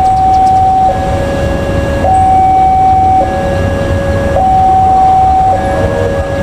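Electronic two-tone warning alarm alternating evenly between a higher and a lower tone, each held about a second, typical of a railway level-crossing signal warning that a train is coming. A low rumble sits beneath it.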